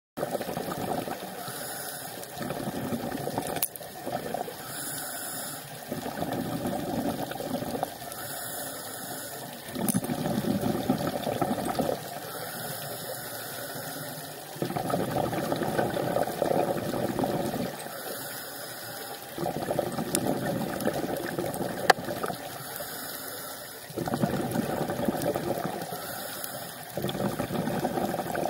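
Scuba diver breathing through a regulator underwater: a short hiss on each inhale, then a louder rushing bubble noise on each exhale, repeating about every four to five seconds.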